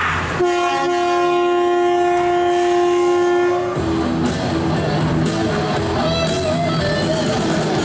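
A long, steady horn blast of about three seconds, followed by rock music with guitar over the show's sound system.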